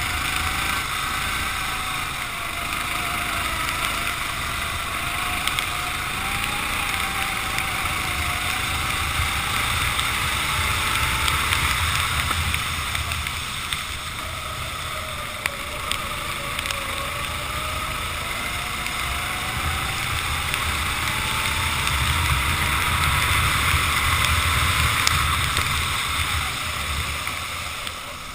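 A racing kart engine running at racing speed, its pitch rising and falling over several seconds as it revs up on the straights and drops back for corners. Behind it is a steady hiss of wind on the microphone and spray off the wet track.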